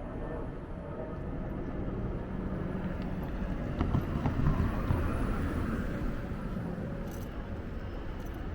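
A passing vehicle: a low rumble that builds to a peak about halfway through, with a few sharp clicks, then fades.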